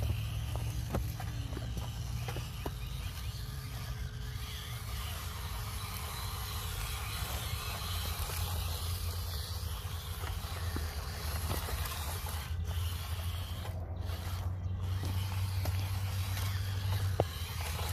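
Hobby Plus CR-18 1/18-scale RC crawler driving along a dirt trail: its small electric motor and gears whirring steadily, with the scrape and scattered clicks of tyres on dirt and stones.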